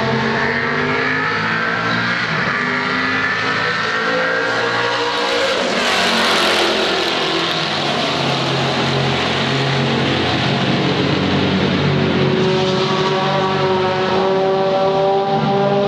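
Racing car engines at speed on a circuit: one engine's note falls away over the first few seconds, a car passes close and loud about six seconds in, and another engine's note climbs again over the last few seconds.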